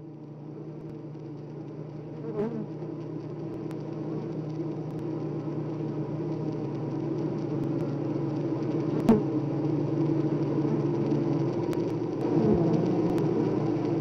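A swarm of honeybees buzzing in a hive: a steady, dense hum that fades in and grows louder, with a couple of faint clicks.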